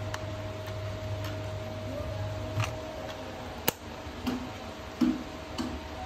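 Light plastic clicks and knocks from a toy remote-control truck's plastic body and chassis being turned over in the hands; one sharp click about three and a half seconds in is the loudest. A steady faint hum runs underneath.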